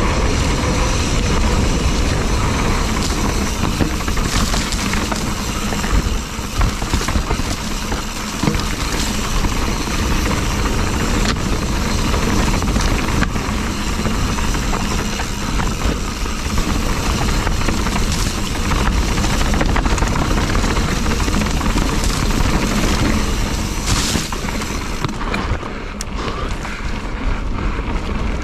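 Mountain bike riding over a dirt trail, heard through an action camera's microphone: a steady rush and rumble of wind and tyre noise, with scattered knocks and rattles from the bike.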